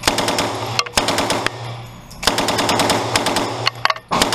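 Uzi submachine gun firing on full auto in several short bursts of rapid shots, separated by brief pauses.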